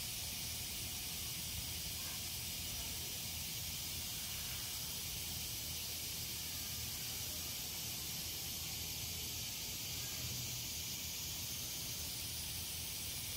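Steady, unbroken hiss with a low rumble underneath, with no distinct events.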